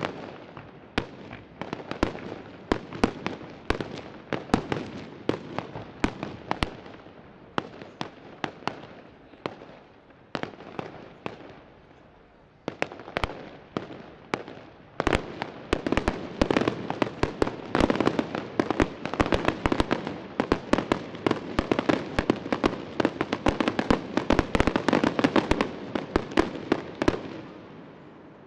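Aerial fireworks display: a rapid, irregular run of shell bursts, thinning out for a few seconds around the middle, then building to a dense barrage in the second half before dying away near the end.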